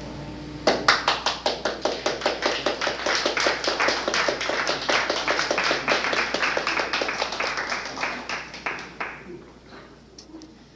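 Small audience applauding, starting suddenly about a second in with individual claps clearly distinct, then thinning out and dying away near the end.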